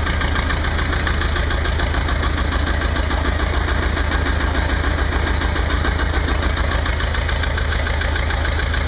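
Belarus 250 tractor's air-cooled two-cylinder diesel idling steadily with an even, fast pulse, warming up shortly after a cold start in freezing weather.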